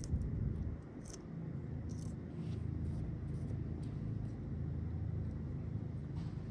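Wind rumbling on the microphone, with scattered light ticks and scrapes from a scraper working old decals off a boat's surface.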